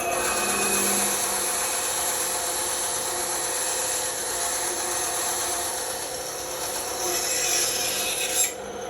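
Bandsaw running and cutting through wood, a steady mechanical whir with a hissing cut; the cutting noise drops away near the end.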